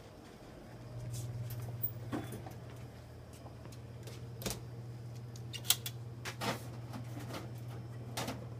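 A lab incubator's door is opened and the tubes are handled inside it: several clicks and knocks, the sharpest a little past halfway, over a steady low hum that sets in about a second in.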